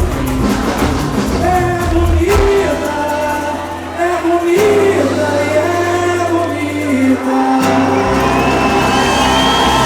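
Live band music with a singer holding long notes that slide up and down in pitch, over a steady bass.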